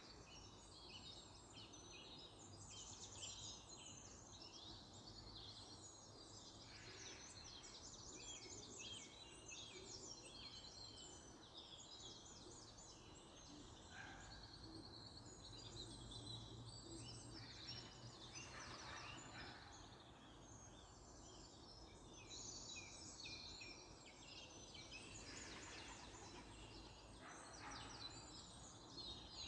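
Faint chorus of small songbirds chirping and singing continuously, many overlapping quick calls and trills, over a steady low background rumble.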